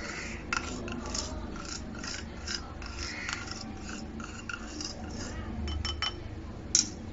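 A spoon scraping sugar out of a small ceramic bowl into a bowl of flour, in quick repeated scrapes. A sharp clink comes near the end.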